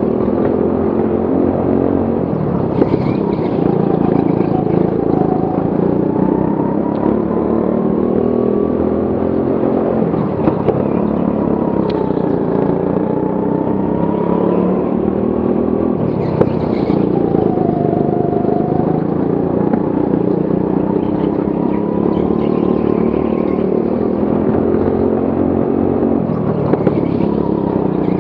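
Go-kart engine running at race pace, heard from the driver's seat, its note rising and falling every few seconds as the kart slows for corners and accelerates out of them.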